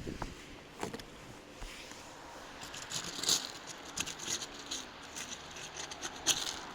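Footsteps and scuffing on a flat roof: scattered scrapes, crackles and light knocks, busier in the second half.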